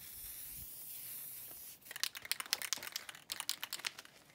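Aerosol spray-paint can hissing steadily for about a second and a half, then the can being shaken, its mixing ball rattling in a quick run of clicks for about two seconds.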